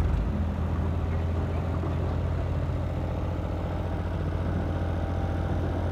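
Tractor diesel engine running steadily at a low, even hum.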